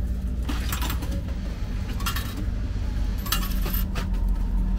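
Coins dropping into an old hamburger vending machine's coin mechanism: three clusters of metallic clinks about a second and a half apart, over a steady low rumble.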